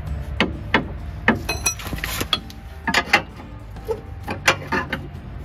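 Irregular metallic knocks and clinks as a Subaru Justy's steel lower control arm is worked loose from the subframe, with a brief ringing scrape about a second and a half in.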